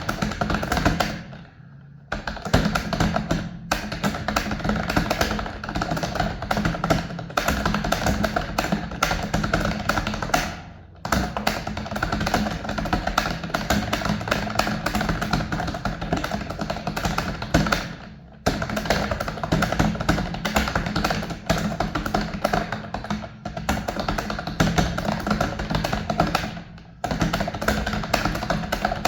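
Fast typing on a computer keyboard: a dense run of key clicks that breaks off briefly about every eight seconds.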